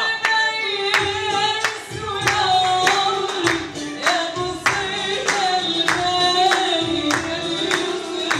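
A woman singing into a handheld microphone while listeners clap along in a steady rhythm, about two claps a second.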